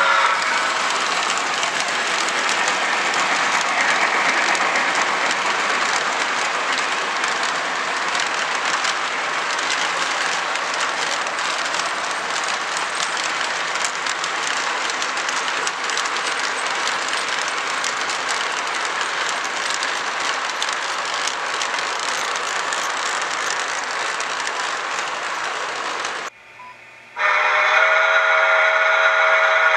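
Lionel LionChief O-gauge model of steam locomotive Pere Marquette 1225 and its mixed train rolling past on the track: a steady rush of wheel and rail noise with fine clicking. Near the end the rolling sound cuts off briefly, then the locomotive's electronic whistle sounds as a set of steady tones.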